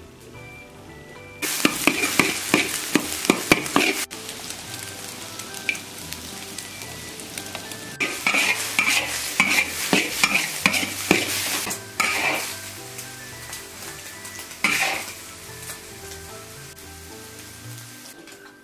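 Beaten eggs sizzling in hot oil in a large black wok on a wood-fired stove, with a metal ladle scraping and stirring them around the pan. The sizzle comes in loud spells, about a second and a half in and again around eight seconds, then a short one near fifteen seconds, before it dies down.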